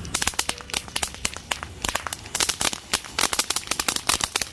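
Standard Fireworks 'Happiness' ground fountain spraying sparks and crackling: a rapid, irregular run of sharp pops.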